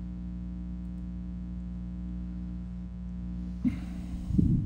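A steady low electrical hum, with a short rustling, breathy noise and a low thump near the end.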